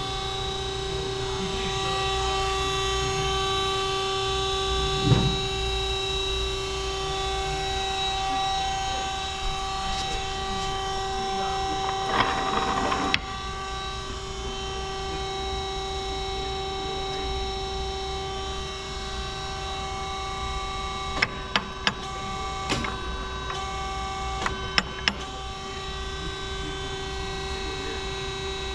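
Peerless VB-1820XL vertical band saw running under its three-phase motor, a steady hum and whine held at one pitch. There is a short rasping noise about twelve seconds in, and several sharp clicks a little after twenty seconds.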